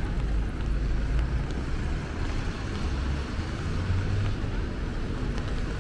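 City street ambience: a steady low rumble of road traffic, with no distinct events.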